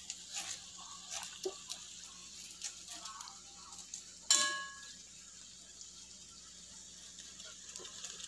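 A perforated metal spoon stirring sliced onions in oil in a kadai, with soft scrapes and light clinks. About four seconds in there is one sharp, ringing metal clink.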